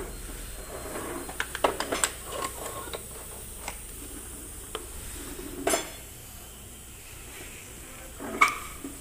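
Scattered metal-on-metal clinks and taps, as tools or parts knock against the truck's gearbox and bell housing. A quick cluster comes in the first two seconds, a louder clink near six seconds, and the loudest single clank near the end.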